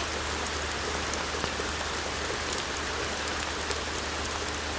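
Steady rain from a rainstorm falling, an even hiss dotted with many sharp individual drop ticks, over a steady low rumble.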